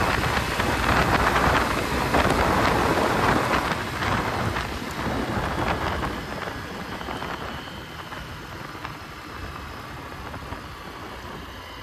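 Wind rushing and buffeting over the microphone of a Honda Shine 100 motorcycle ridden near its top speed of about 80 km/h. The rushing noise falls away gradually over the second half.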